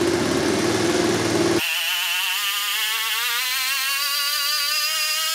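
50cc GY6 (139QMB) four-stroke single-cylinder scooter engine running just above idle. About a second and a half in, the sound changes abruptly, and the engine revs up with its pitch climbing steadily toward about 5,000 RPM.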